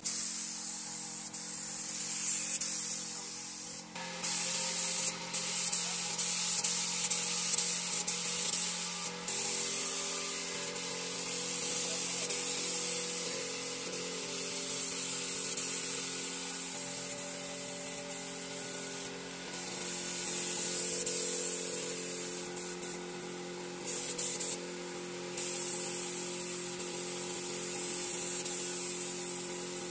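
Gravity-feed air spray gun hissing as it sprays finish onto wood, the hiss cutting out briefly several times when the trigger is let off. A steady low hum runs underneath.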